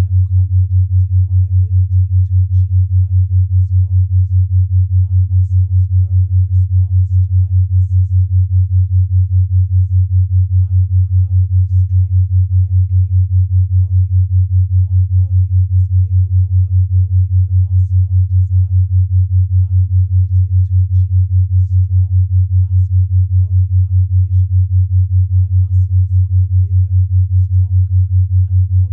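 Binaural-beat track: a loud, steady, low sine tone with a fast, even pulse from its 5 Hz beat. Under it runs a very faint voice, the subliminal affirmations, mixed far below the tone.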